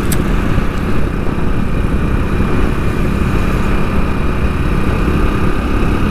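Motorcycle engine running steadily at cruising speed, heard from the rider's seat, with a dense low rumble of wind on the microphone. There is a brief click just after the start.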